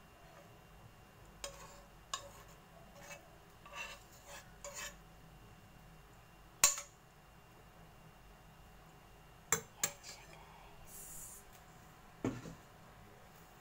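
Metal spoon scraping and clinking against a nonstick frying pan and a ceramic plate as stir-fried vegetables are served, in scattered light taps. There is one sharp clink about halfway, two quick clinks a little later, and a duller knock near the end.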